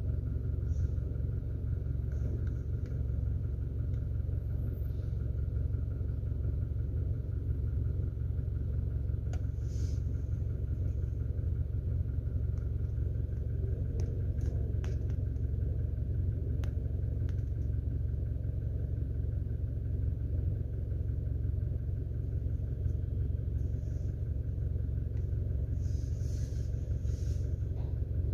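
Toyota Hilux 1GD 2.8-litre four-cylinder turbodiesel idling with a steady low rumble, with a few faint clicks over it.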